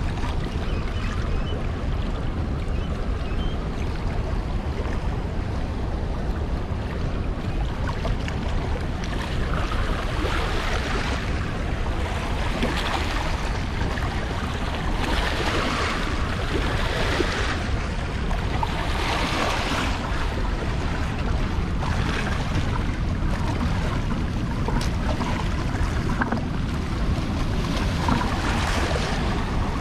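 Steady rush of fast water pouring out below a dam spillway with its gates open, with wind buffeting the microphone as a constant low rumble.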